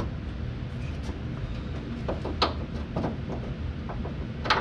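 A few scattered light metallic clicks and taps from hand tools on the car's front suspension as a bolt is worked out, over a low steady hum.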